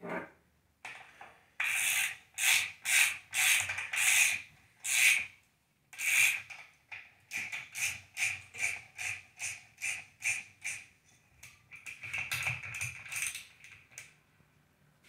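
Hand ratchet wrench tightening a light-bar mounting bolt: repeated bursts of ratchet clicking, about two strokes a second at first, then quicker, shorter strokes.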